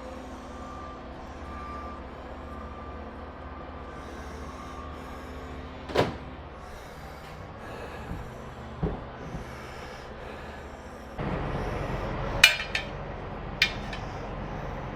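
Work noise from a motorcycle tire change: handling noise with a few sharp metal clinks and knocks of tools and the wheel rim, the loudest two near the end.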